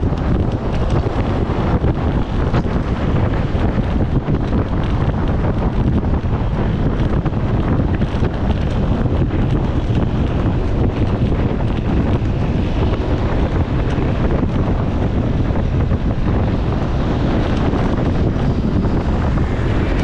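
Steady wind rushing and buffeting over the microphone of a moving bike, a dense low noise with road noise underneath.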